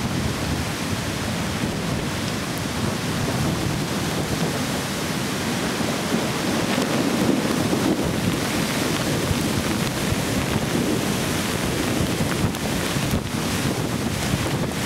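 Heavy storm surf, big waves breaking and churning against a pier and seawall, with strong wind buffeting the microphone. A steady, loud rush that swells slightly midway.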